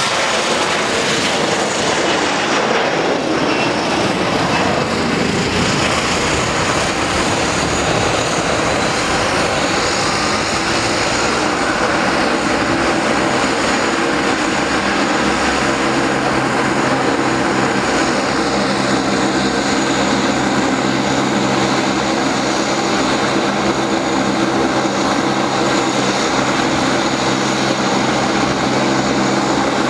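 Boeing 737-300's CFM56 turbofans at takeoff power as the jet climbs away: a broad roar that thins out after about ten seconds. Under it runs the steady drone of a nearby turboprop, whose held low tones come to the fore in the second half.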